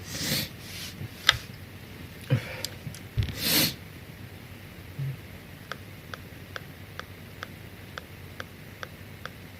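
Sharp nasal breaths from a man, sniffs and snorts, with a louder burst about three seconds in. After that comes faint regular ticking, a little over two ticks a second.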